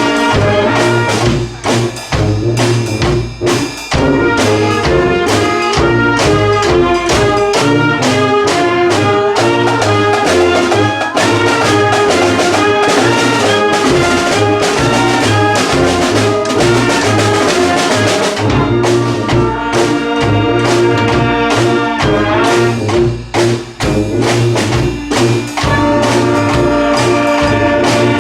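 Brass band with trumpets, trombones and drums playing an upbeat rock tune in full ensemble, with brief breaks in the beat a few times.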